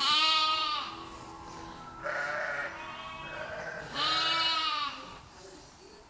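Lamb bleating loudly, twice, about four seconds apart, with quieter bleats from other sheep in between: a lamb out of its pen calling for its ewe.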